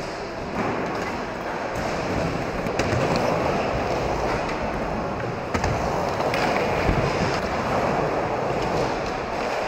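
Skateboard wheels rolling steadily across an indoor half-pipe ramp, with a few sharp clacks from the board, three of them standing out during the middle seconds.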